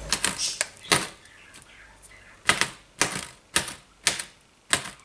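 Knife tip punching holes in plastic cling wrap stretched over a dish, each puncture a sharp pop. One comes about a second in, then a steady run about every half second from the middle on.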